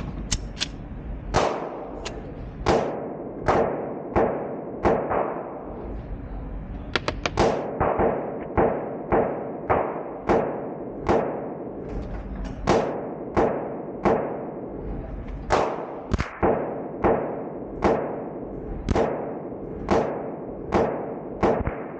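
Suppressed AV9 being fired in a steady string of roughly thirty shots, mostly a little under a second apart, with a quick burst of four about seven seconds in. Each shot is a sharp crack that echoes off the walls of the indoor range.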